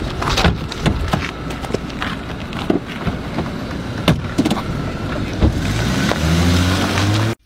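Knocks and bangs of car doors being shut on a sedan, then its engine revving up in a rising pitch as the car pulls away. The sound cuts off suddenly near the end.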